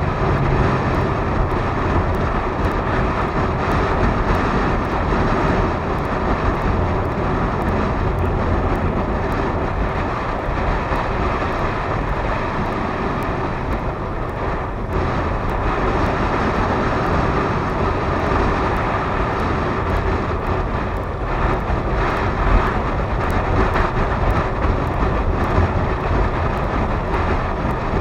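Small motorcycle running steadily at road speed, mixed with wind rushing over a helmet-mounted action camera.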